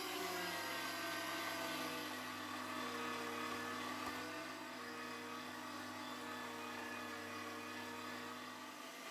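Electric meat grinder motor running steadily under load, with a low hum and a whine that drifts slightly in pitch, as it pushes chickpea-flour cookie dough out through the grinder plate in strands.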